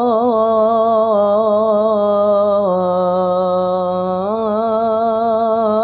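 A boy's voice chanting the adhan, the Islamic call to prayer, drawing one 'Allahu akbar' out into a long melismatic held note. It wavers in quick ornaments, steps down in pitch about halfway through and holds there for under two seconds, then climbs back up into more ornaments near the end.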